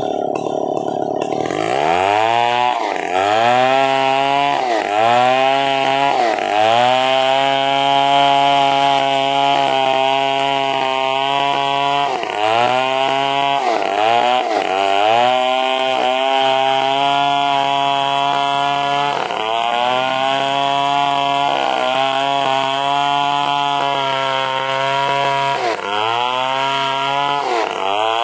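Stihl two-stroke chainsaw revving up about a second and a half in, then running at high, steady revs with repeated brief dips and climbs in pitch as it is eased off and loaded, cutting lengthways through an angsana (narra) trunk to make planks.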